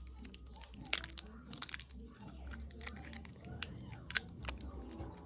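A small wrapped sweet being unwrapped by hand: scattered crinkles and small clicks of the wrapper, a few sharper ones about a second in and again near four seconds, as it goes into the mouth.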